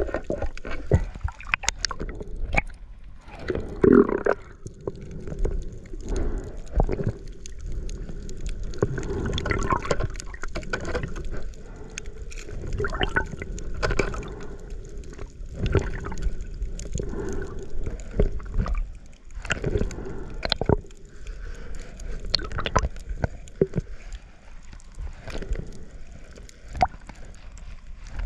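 Water gurgling and sloshing around an underwater camera, with irregular clicks and knocks, over a faint steady hum.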